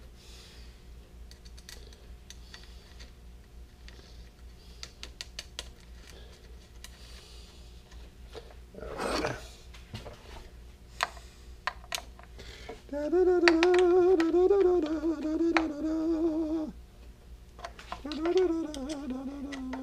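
Scattered small metallic clicks and taps as bolts, washers and a tool are handled while the bike's seat clamp is refitted. These are followed about two-thirds of the way in by a man humming a wavering tune for a few seconds, the loudest sound, and again near the end.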